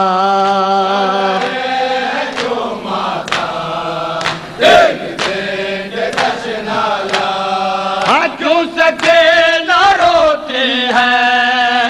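Several men chanting an Urdu noha lament together, holding long sung lines, with rhythmic slaps of matam (mourners striking their chests) keeping time about once or twice a second.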